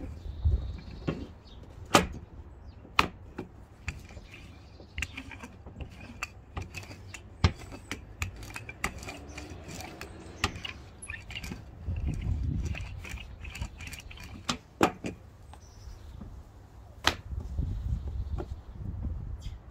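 Wooden rolling pin rolling out dough on a wooden board, with irregular sharp wooden knocks over a low rumble.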